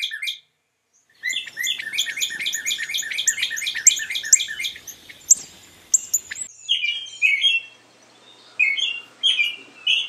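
Northern cardinal song: a fast, even series of repeated slurred whistled notes lasting about five seconds. It gives way, about two-thirds of the way in, to an American robin's song of short warbled phrases with brief pauses between them.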